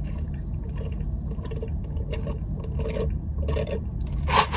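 Steady low rumble of a car driving, heard from inside the cabin, with a few faint soft ticks; near the end a louder hissing scrape comes in.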